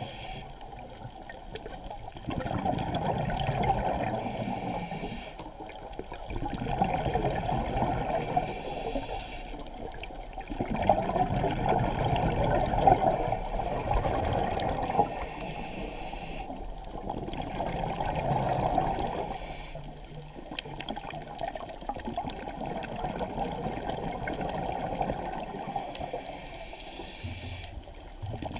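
A scuba diver's breathing underwater: bubbles rushing from the regulator's exhaust, rising and falling every few seconds with each breath. The sound is muffled, as heard through a waterproof camera housing.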